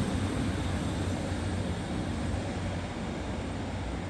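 Class 156 diesel multiple unit pulling away, its diesel engine hum and running noise fading steadily as it draws off down the line.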